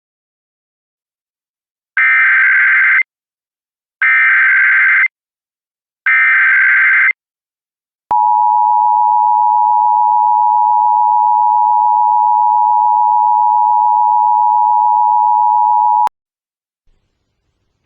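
Emergency Alert System tones: three one-second bursts of the SAME digital header, a buzzy data warble, followed by the two-tone attention signal held steady for about eight seconds before it cuts off sharply.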